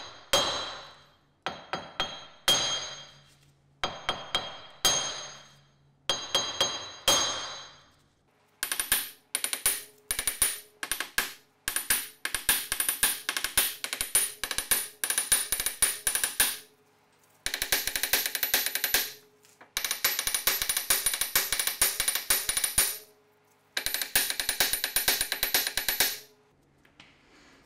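Lump hammer striking a seized front wheel hub bearing to break it free from the steering knuckle. First come single blows with a metallic ring, then bursts of rapid blows, sped up by the fast-forward.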